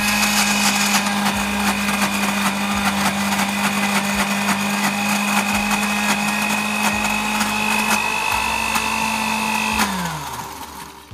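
Philips countertop blender motor running at a steady pitch under load, chopping thick fish paste; it is switched off about ten seconds in and winds down.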